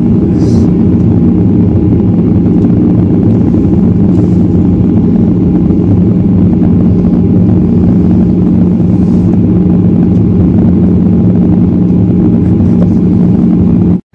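Jet engines of a flydubai Boeing 737 heard from inside the cabin as it taxis: a loud, steady low hum with a droning tone. It cuts off suddenly near the end.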